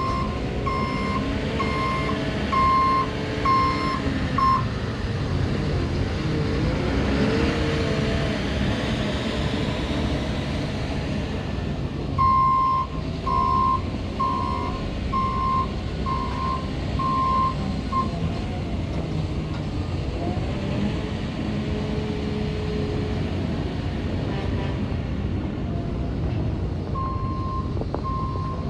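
Cat 930M wheel loader's C7.1 diesel engine running as the machine drives and turns, its pitch rising and falling a few seconds in. The loader's backup alarm beeps in three spells while it reverses, at the start, in the middle and near the end, about one beep every 0.7 seconds.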